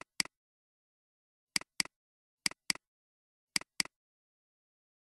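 Computer mouse button double-clicked four times, each a pair of sharp clicks about a quarter second apart, opening folders one after another in a file dialog.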